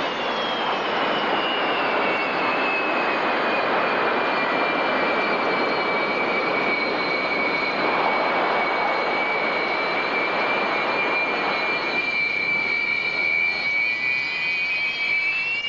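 Jet engines of the Buran atmospheric test vehicle, its AL-31 turbofans, running on the ground: a high whine over a steady rush of jet noise. The whine drops in pitch in the first second, holds steady, and starts to climb again near the end.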